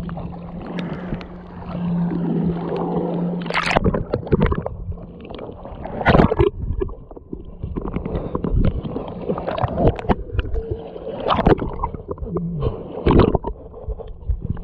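Seawater sloshing, gurgling and splashing close to the microphone, with repeated sudden splashes and knocks over a steady low hum.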